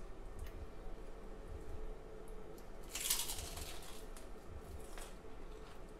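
Crispy fried-chicken crust crunching once, briefly, about three seconds in, as a freshly fried piece is broken into.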